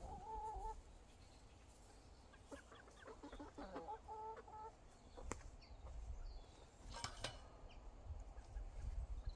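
Domestic chickens clucking: a short call right at the start, then a run of quick clucks about three to four seconds in. A few sharp knocks follow later.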